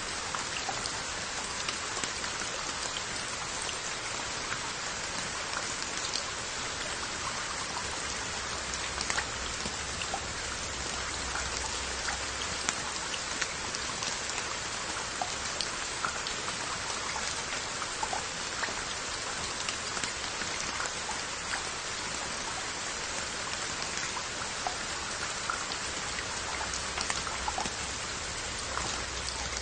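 Steady rain falling on earthenware onggi jars and their lids: an even hiss of rain with many separate drops ticking on the pottery.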